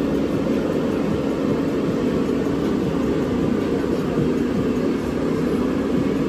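A small motor humming steadily, a constant low tone under an even noise, with no change in speed.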